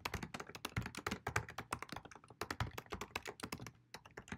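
Rapid typing on a computer keyboard: a quick, steady run of key clicks with a brief pause near the end.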